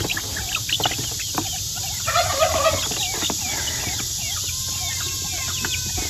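Bantam chickens calling with many short, high chirps and a few clucks, scattered unevenly.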